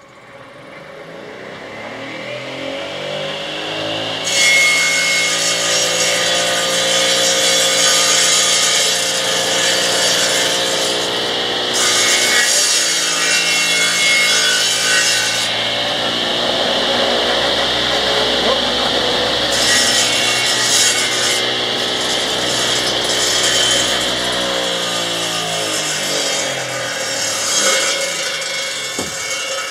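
A homemade sawmill run directly off solar panels: its electric drive spins up over the first few seconds, then the blade saws steadily through a log with a rasping, whining cut. Near the end the drive winds down as the pitch falls away.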